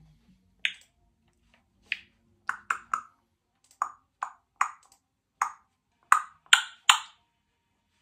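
Congo African grey parrot making a series of about a dozen short, sharp clicks and pops at irregular intervals, loudest near the end.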